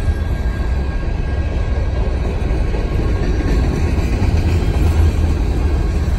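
Freight cars of a passing manifest train rolling over the rails: a steady low rumble with the rushing, clattering noise of the wheels, and the crossing's electronic bells ringing faintly underneath.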